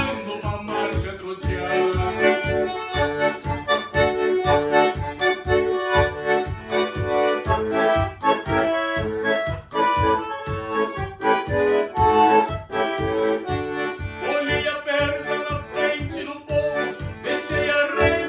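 Bandoneon playing a melody over a rhythmic accompaniment with a steady bass beat, about three beats a second.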